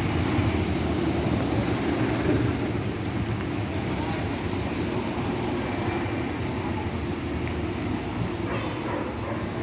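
Street traffic: a city bus's engine running as it moves off, with a thin high-pitched squeal lasting about four seconds in the middle.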